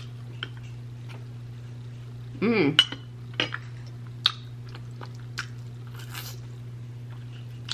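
Metal spoon clinking and scraping against a glass bowl of mashed potatoes, then a few sharp clicks of eating, with a short voiced "mm" about two and a half seconds in. A steady low hum lies under it all.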